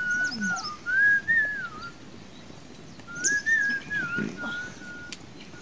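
A person whistling a slow tune in two phrases, held notes gliding up and down, with a pause of about a second between the phrases.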